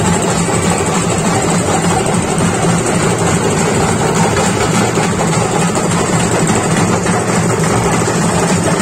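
Tractor's diesel engine running steadily at an even, unchanging speed, a constant low drone close by.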